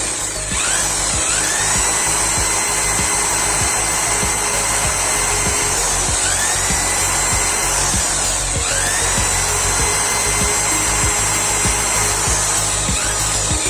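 A handheld electric power tool running, its motor whine rising and levelling off about four times as it speeds up. Background music plays underneath.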